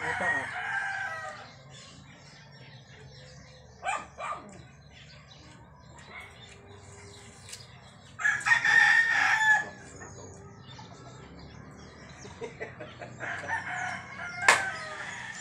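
A rooster crowing several times: a crow right at the start, a louder one lasting about a second and a half about eight seconds in, and more crowing near the end, with a sharp click just before the end.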